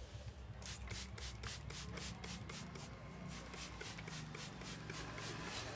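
Barber's hands rubbing and working a client's hair and scalp in a head massage, quick even rasping strokes at about five a second.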